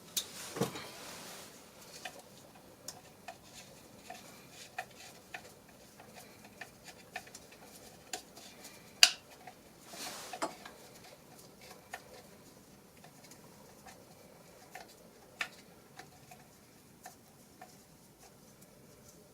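Scattered light metallic clicks and taps of hand tools and small bolts as a small distributor bolt is worked loose and removed. A sharper click about nine seconds in is the loudest.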